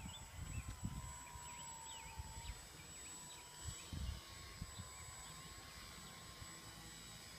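Distant electric RC model aircraft (Nanous Sukhoi with a 400-size motor) hovering nose-up: a thin, steady motor-and-propeller whine that wavers slightly in pitch. Wind buffets the microphone in low gusts, strongest about four seconds in.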